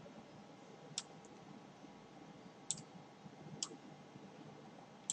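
Three faint, short clicks of computer input over quiet room tone: one about a second in and two more around the middle.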